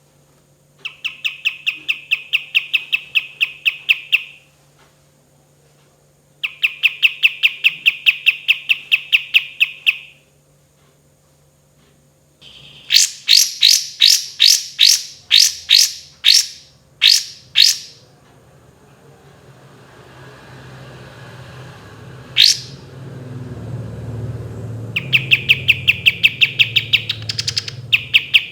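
Kapas tembak bulbul singing its rolling 'tembakan' runs: strings of quick repeated notes, about four a second and a few seconds long, with pauses between. Midway comes a louder series of separate sharp notes, then a single rising whistle, then the repeated notes start again, over a low rumble in the second half.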